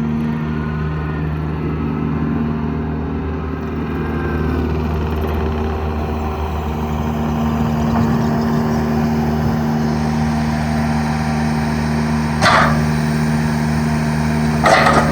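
Deutz diesel engine of a 2023 Manitou 2550RT tracked skid steer running steadily. Two short, sharp bursts of a higher-pitched sound come near the end, a couple of seconds apart.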